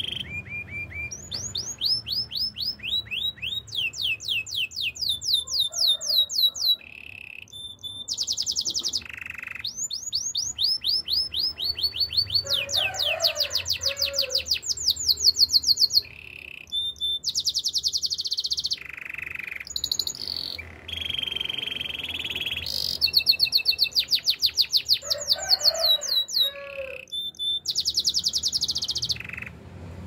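Domestic canary singing: a long song of rapid trills, each a run of quickly repeated notes sweeping up or down in pitch, switching from one trill to the next with brief pauses.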